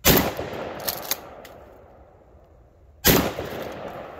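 Two shotgun shots about three seconds apart, firing 2¾-inch low-brass #7.5 birdshot loads, each ringing off across the range for about a second. A few light clicks follow the first shot.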